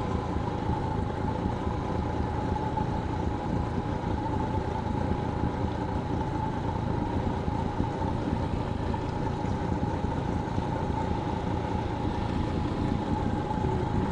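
Honda 30 hp four-stroke outboard motor running steadily at low trolling speed, with a constant whine over its low running noise.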